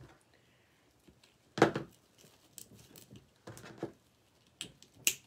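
Deco mesh petals being handled and pressed into place on a wreath board: several short crinkling, rustling bursts, the loudest about one and a half seconds in.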